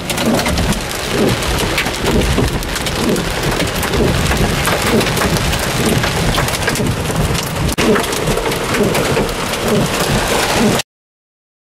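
Heavy rain and large hail pelting a vehicle's roof and windows, heard from inside the car as a dense clatter of many sharp hits. It cuts off suddenly near the end.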